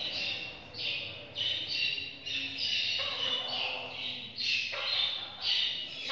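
High-pitched bird calls repeated in a steady chain, one or two short chirps a second.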